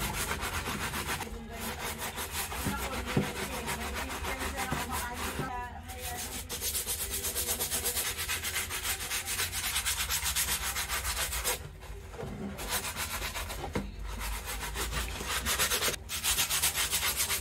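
A brush scrubbing a soapy sneaker in rapid back-and-forth strokes, with a few brief pauses.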